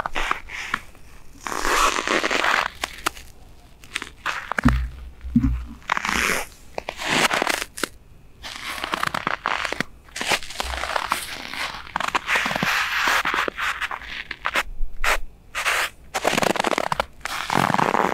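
Boots crunching and scuffing in fresh snow, in irregular steps, with two short low thumps about five seconds in.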